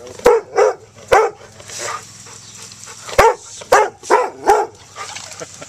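A dog barking in short, sharp barks, three close together at the start and four more in a quick run after about three seconds.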